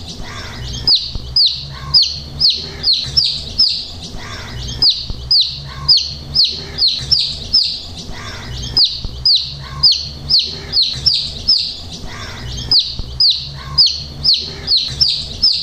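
Domestic chicken chicks peeping continuously, a string of high, downward-sliding peeps about three a second.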